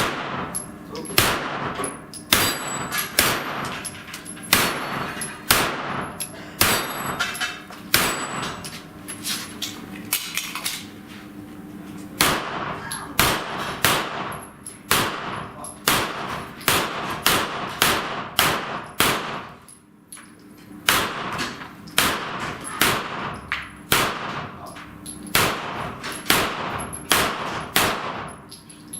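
Rapid strings of pistol-calibre gunshots at steel popper and plate targets, the hits clanging on the steel, with a short pause about two-thirds of the way through.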